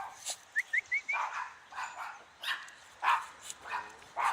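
A dog barking in a string of short barks, about two a second, with four quick high chirps about half a second in.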